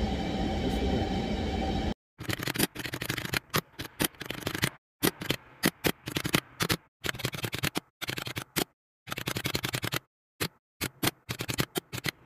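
A steady room hum cuts off about two seconds in, and a typing sound effect follows: quick runs of key clicks broken by short pauses.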